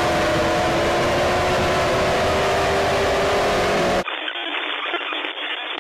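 Emergency alert audio: a steady alarm drone of several held tones over hiss, which cuts off abruptly about four seconds in. A thin, telephone-like crackle of clicks and short buzzing pulses follows.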